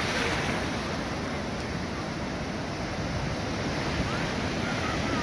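Shallow sea surf washing over a sandy beach: a steady rush of breaking waves, with wind on the microphone.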